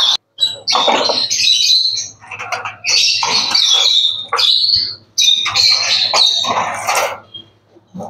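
Lovebirds squawking in harsh, shrill bouts, three loud bursts of a second or two each with short gaps between.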